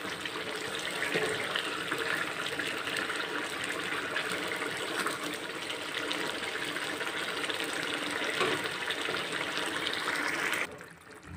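Ash gourd and lai shak curry boiling in a wok, a steady bubbling hiss with fine crackles, as a wooden spatula stirs it. The sound stops abruptly near the end.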